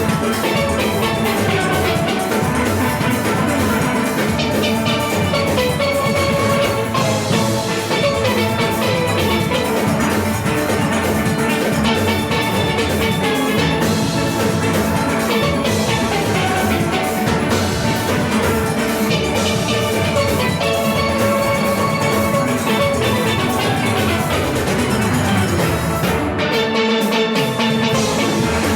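A large steel band playing live: many steelpans ringing out a busy tune over a steady drum-and-percussion rhythm section.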